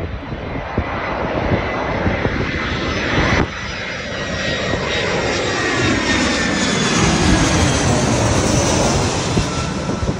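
Airbus A319-111 airliner with CFM56 turbofan engines passing low overhead on its landing approach: a loud jet roar that builds, drops suddenly about three and a half seconds in, then swells again with a slowly falling sweep in pitch as the plane goes by.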